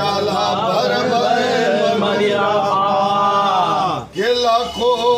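A man's voice with long held notes that slide in pitch, breaking off briefly about four seconds in.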